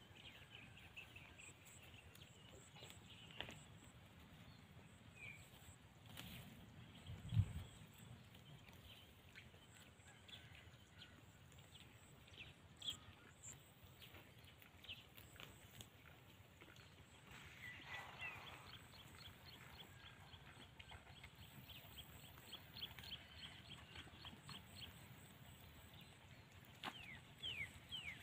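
Quiet pasture sound of goats grazing: faint chirps and scattered ticks, a single dull thump about seven seconds in, and near the end a run of quick crisp clicks as goats bite and tear grass close by.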